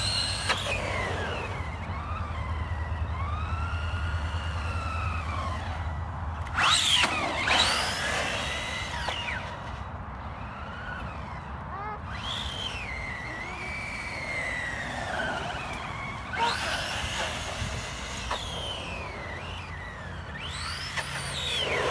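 JLB Racing Bison RC truck driving on asphalt: its motor whine rises and falls in pitch over and over as it speeds up and slows down. There are louder surges of motor and tyre noise at about seven and seventeen seconds in, and again at the end.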